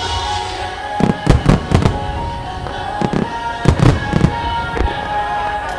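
Aerial fireworks shells bursting in a run of sharp bangs over music from loudspeakers: the first second holds only the music, then a cluster of bangs from about a second in and another in the second half.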